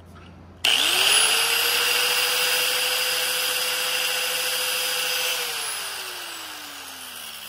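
Small handheld side grinder with an abrasive disc switched on about half a second in. It spins up fast to a steady whine while it grinds the end of a piston ring to widen the ring gap. It is switched off a little past the middle, and its pitch glides down as the disc winds down.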